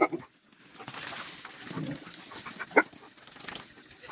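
Dogs giving short, sharp excited yips, one at the start and another nearly three seconds in, with quieter sounds in between.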